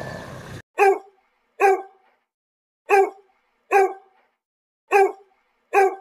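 The fading end of a roar cuts off about half a second in. It is followed by a dog barking: six short barks in pairs, with silent gaps between the pairs.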